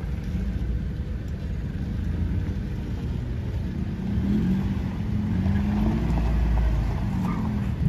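Suzuki Sierra four-wheel drive's engine pulling the vehicle slowly over deep ruts, the revs rising and falling from about four seconds in.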